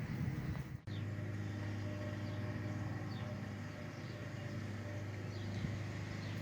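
Outdoor ambience: a steady low rumble like distant traffic, with faint bird chirps over it. The sound drops out briefly about a second in, then carries on.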